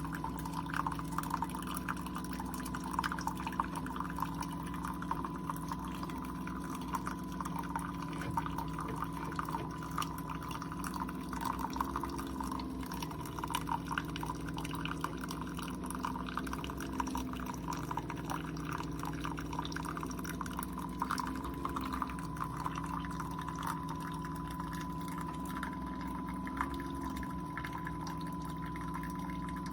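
Keurig K-Supreme Plus single-serve coffee maker brewing: its water pump hums steadily, swelling every four or five seconds, while coffee pours and drips with a constant crackle.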